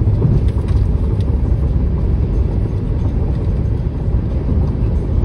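Steady low tyre and road rumble inside a Tesla Model 3's cabin, cruising at highway speed.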